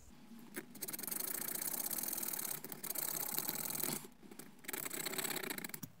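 Small wooden pick scraping rapidly inside the spring channel of a rusty Colonial Barlow pocket knife, working the rust loose. A run of fast scratchy strokes, with a short break about four seconds in before the scraping starts again.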